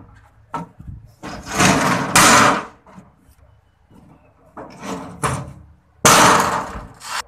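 Metal shuttering plates being lifted, dragged and dropped onto a pile, clattering and scraping in three loud spells, the last one starting suddenly about six seconds in.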